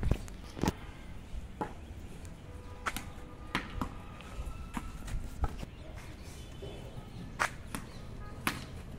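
A scatter of sharp, close taps and knocks at irregular intervals, the loudest right at the start and about a second in, over a quiet outdoor background.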